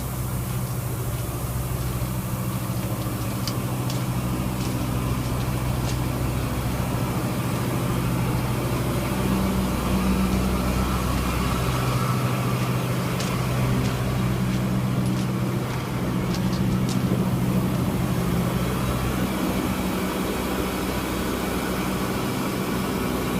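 Air conditioner outdoor unit running with a steady low hum, and a few faint clicks.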